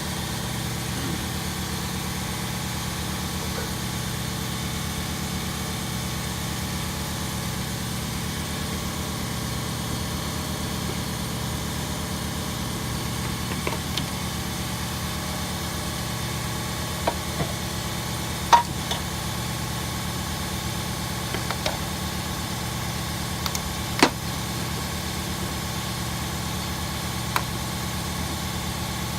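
A steady mechanical drone, like a motor running at an even speed, with a few scattered sharp clicks. The loudest clicks come about two thirds and four fifths of the way through.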